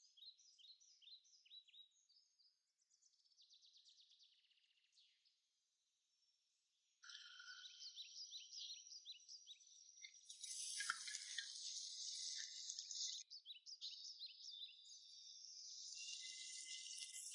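Faint sizzling and crackling of onions frying in oil in a nonstick pan, starting suddenly about seven seconds in and louder from about ten seconds, with a few light knocks of a wooden spoon. Before it, faint quick chirps like a small bird's.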